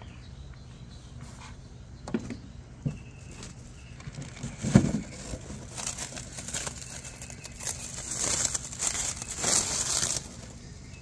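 Clear plastic wrap crinkling and rustling as it is handled and peeled off a new headlight unit in a cardboard box. A few knocks from the unit being handled come first, the loudest about five seconds in.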